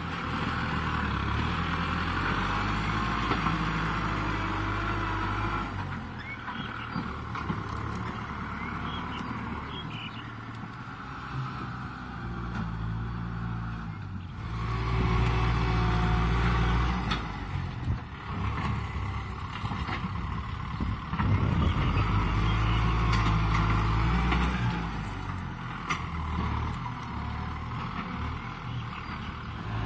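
Kubota M6040SU tractor's four-cylinder diesel engine running under load as the tractor pushes soil and brush with its front blade. The engine is steady throughout, its loudness changing abruptly a few times and loudest from about halfway in.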